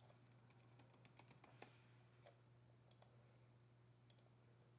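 Near silence with faint computer keyboard typing: a quick run of keystrokes about a second in, followed by a few single mouse clicks.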